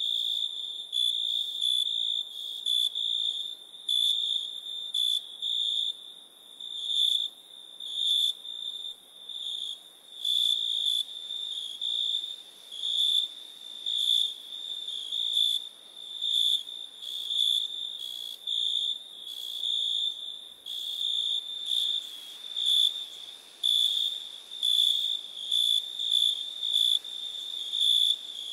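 Night insects calling: a steady, high-pitched trill that swells and fades in pulses about once or twice a second.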